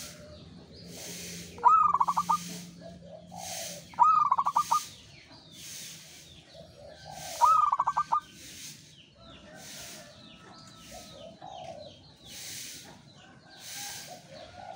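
Zebra dove (local perkutut) singing three phrases, each an opening coo followed by a quick run of short, clipped cooing notes, a few seconds apart.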